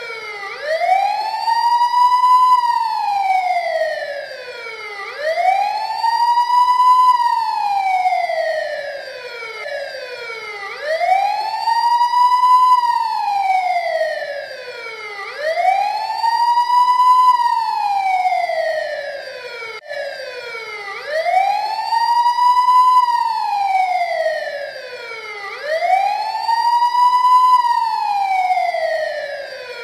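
Wailing siren, its pitch rising quickly and then falling slowly, one slow wail about every five seconds, over and over.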